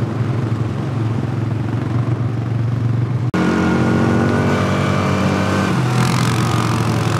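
ATV engines running, loud and rough, with an edit cut a little over three seconds in to a steadier, evenly pitched engine drone.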